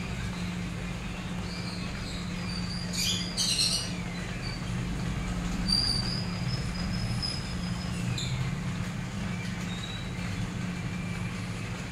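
A steady low mechanical hum, with a short burst of hiss about three seconds in and a thin high whistle around six seconds in.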